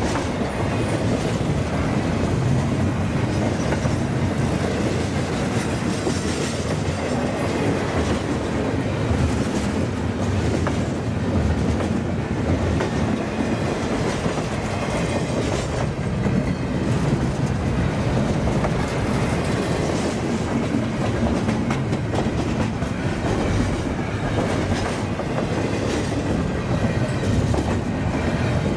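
Double-stack intermodal container cars of a freight train passing at speed: a steady rumble and clatter of steel wheels on the rails.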